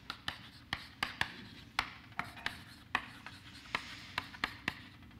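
Chalk writing on a blackboard: irregular sharp taps with short scratches in between.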